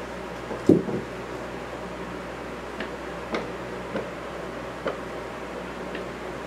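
Cats play-wrestling on wooden floorboards: one thump of a body hitting the floor just under a second in, then scattered light taps and clicks of paws and claws on the boards, over a steady low hum.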